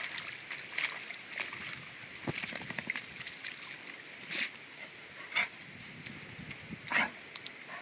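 Flat-coated retrievers splashing and moving about in a shallow muddy puddle: a run of short, irregular splashy and snuffly noises, the loudest about four and a half, five and a half and seven seconds in.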